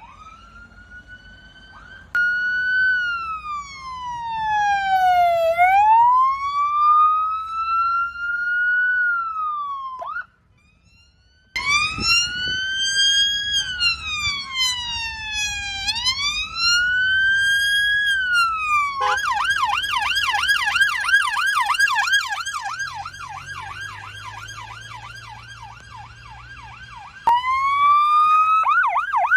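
Electronic emergency-vehicle sirens sounding a slow wail that rises and falls every few seconds, broken once by a short gap. About two-thirds of the way through the siren switches to a fast yelp, and near the end a new wail cuts in and quickly goes into the yelp again.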